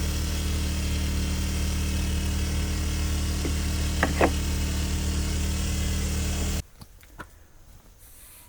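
A motor-driven machine running with a steady hum, then cutting off abruptly about six and a half seconds in. Two brief squeaks come about four seconds in, and a few light knocks follow in the quiet after the cutoff.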